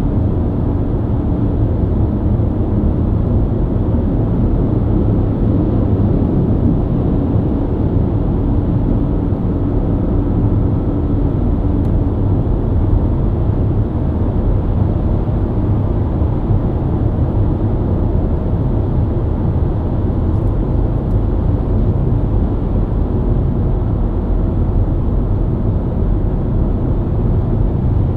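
BMW E90 323i's inline-six engine and tyres at a steady highway cruise: a constant low drone with road rumble, no revving or gear changes.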